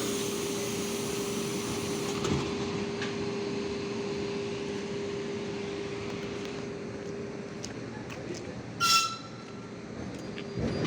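ED4M electric multiple unit running with a steady hum under rail noise. About nine seconds in there is one short, loud, high-pitched sound.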